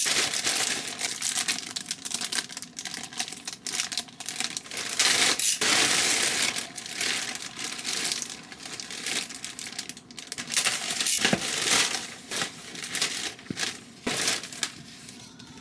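Plastic or paper packaging being crinkled and crumpled by hand, in irregular bursts of crackling.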